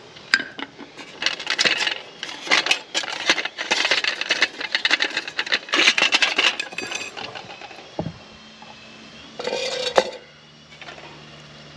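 Metal pans and parts of a meths-stove camping cookset clinking, clattering and rattling as they are handled and nested inside one another, with a last short clatter near the end.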